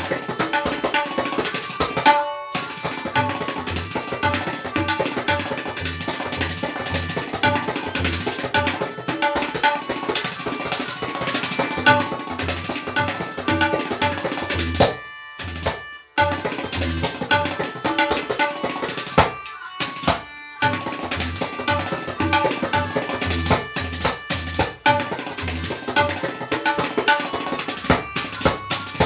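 Tabla played solo in teentaal: rapid, dense strokes on the dayan and bayan, with a few brief stops, the longest about halfway through.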